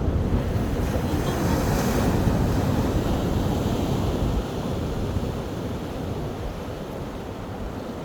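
Ocean surf breaking and washing up a beach. A wave swells about two seconds in and slowly ebbs away.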